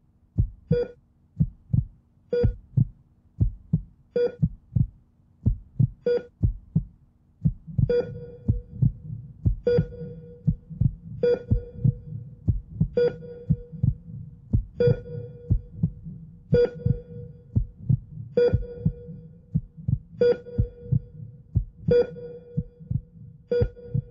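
Soundtrack pulse of low, heartbeat-like thumps, with a short ringing note sounding about every two seconds. A low hum joins about a third of the way in.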